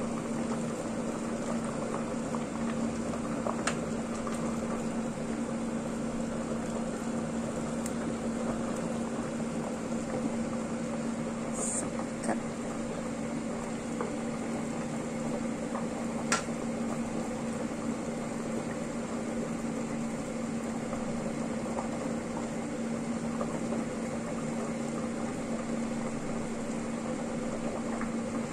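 A pot of soup bubbling at a steady boil, over a constant low hum. A few faint clicks come through, the sharpest about 16 seconds in.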